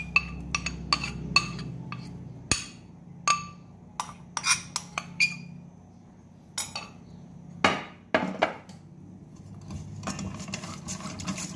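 A stirring utensil clinking and knocking against a bowl in irregular sharp strikes while cornstarch is stirred into a liquid milk and orange-juice batter. The strikes thin out in the last few seconds.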